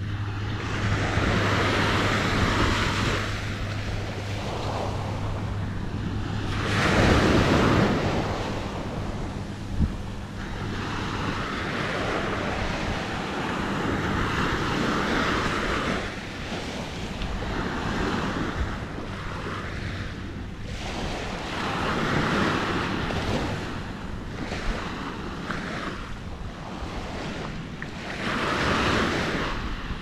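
Small waves breaking and washing up a sandy beach, the surf swelling and fading every few seconds, with wind buffeting the microphone. A low steady hum sits underneath for about the first half.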